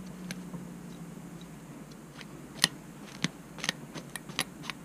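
A handful of sharp, irregular clicks and taps from a small hand tool and a hook being worked in the hands, mostly in the second half.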